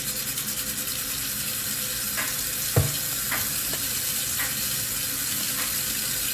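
Kitchen faucet running steadily into a metal sink, with hands rubbing under the stream. A few light knocks come through, the loudest about three seconds in.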